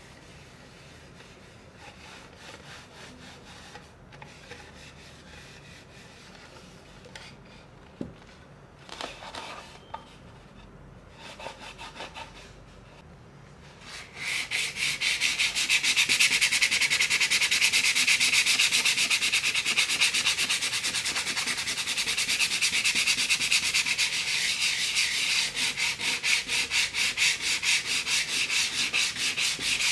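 Light handling sounds and a single click, then about halfway through a loud run of quick, even back-and-forth rubbing strokes across a surface starts and keeps going steadily.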